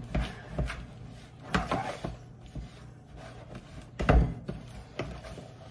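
Cookie dough being stirred by hand in a mixing bowl, the utensil knocking and scraping against the bowl in irregular clunks. The loudest knock comes about four seconds in.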